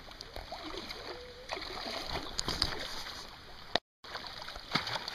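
River water running with intermittent splashes, likely as a hooked salmon is played in the shallows; the sound cuts out for a moment about four seconds in.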